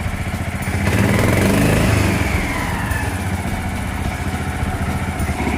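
Maeda MC-205C mini crawler crane's engine running, speeding up about a second in and settling back to a lower speed after the middle, its throttle worked by the radio remote's accelerator trigger.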